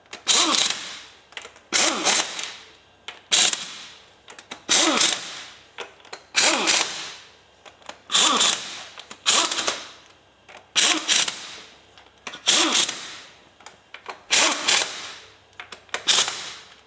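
Air tool on a low setting running down the engine cover bolts one after another, tightening from the center out. About ten short whirring bursts come roughly every one and a half seconds, each dropping in pitch as it fades.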